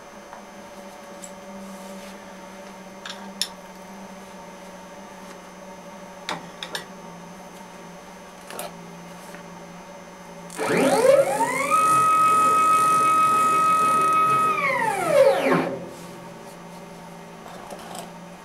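The BF45 CNC milling machine's motor whines as it ramps up in pitch, holds a steady tone for about three seconds, then ramps back down and stops. Before that there is only a low steady hum and a few light clicks.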